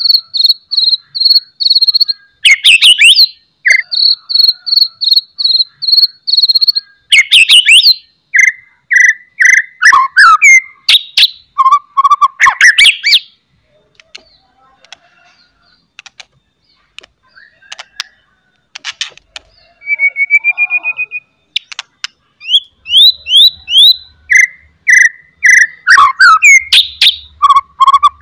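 White-rumped shama (murai batu) singing loudly in full song. It opens with a fast run of repeated high, rattling notes, then shifts to sharp whistles at several pitches and quick chips. A lull of several seconds falls in the middle, and the song resumes with rising slurred notes.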